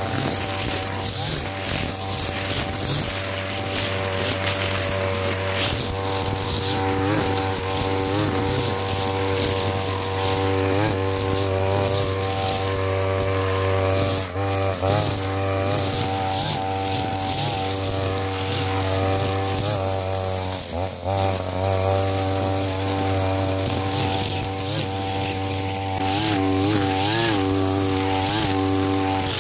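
Two-stroke brush cutter (grass trimmer) running at high throttle while cutting weeds, its engine note dipping for a moment each time the cutting head bites into thick growth, with one deeper dip about two-thirds of the way through.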